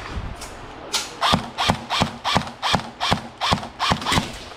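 Airsoft rifle firing about ten single shots in quick, even succession, roughly three a second, starting about a second in.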